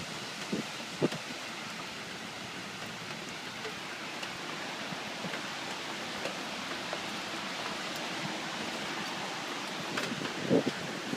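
Steady rush of storm wind and rain, with a few short low thumps near the start and again about ten seconds in.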